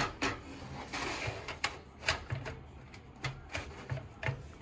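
Irregular clicks and light knocks of plastic and metal as a case fan is handled and fitted into the bottom of a PC case.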